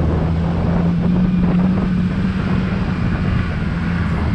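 Jeep Wrangler TJ engine running steadily as it drives along a dirt track, its note lifting slightly about a second in and easing off later. Wind noise on the outside-mounted microphone.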